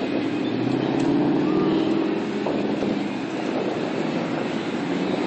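Steady rumble of wind and road noise from a moving bicycle, with city street traffic mixed in.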